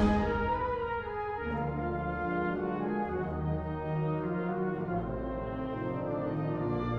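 Wind ensemble playing in concert. A loud full-band chord rings away over the first second, then the band holds softer sustained chords over low bass notes.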